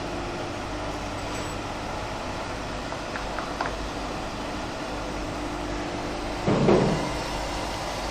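Spin friction welding machine running with a steady hum and a faint steady tone. About six and a half seconds in there is a short, loud burst of noise lasting about half a second, and the tone stops.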